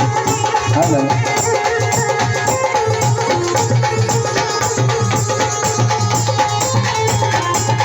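Dhol drumming in a fast, steady rhythm of dense strokes, with a held melodic tone sounding underneath.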